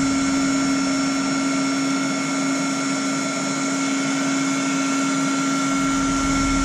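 Handheld electric heat gun running steadily, an even blowing hiss with a constant hum, as it is used to soften an old, sticky rubber oil-line hose.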